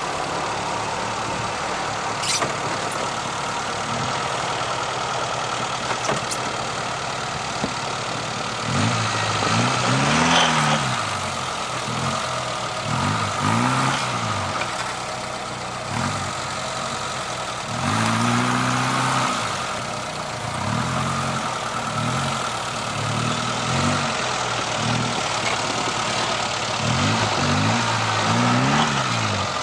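Off-road 4x4 engine running under load on a snowy track. It is fairly steady at first, then from about a third of the way in it revs up and down over and over.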